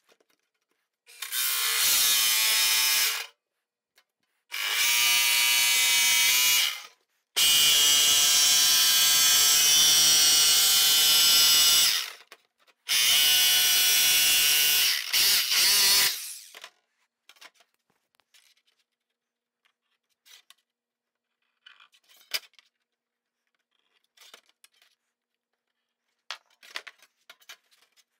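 Corded jigsaw cutting sheet metal in four runs of two to five seconds each, each starting and stopping abruptly. After that come only faint clicks and taps as the saw and sheet are handled.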